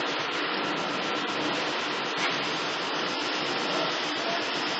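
Aviva milk vending machine dispensing milk, a thin stream pouring into a glass jar, heard as a steady hiss.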